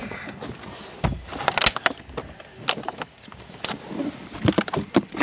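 Handling noise on a phone's microphone: a scatter of sharp knocks and clicks, bunched about a second and a half in and again near the end, over faint rustling.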